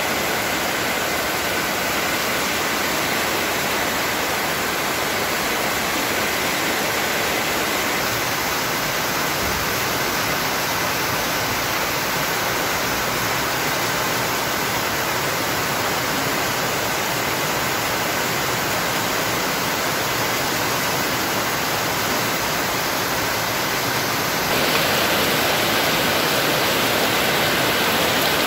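Heavy rain pouring down steadily, a dense even hiss; it gets a little louder about 24 seconds in.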